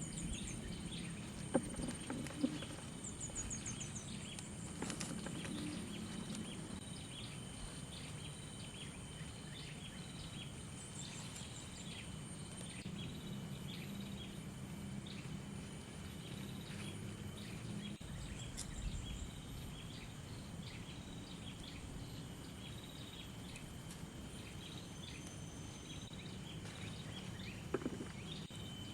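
Rural outdoor ambience: a steady high insect drone with scattered bird chirps, and a few sharp clicks, two of them in the first few seconds and more near the end.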